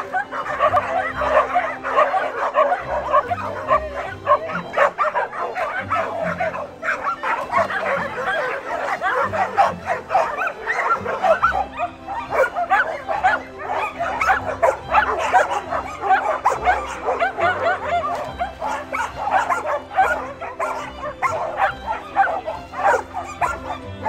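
A pack of many dogs barking and yipping excitedly all at once, an unbroken chorus of overlapping barks.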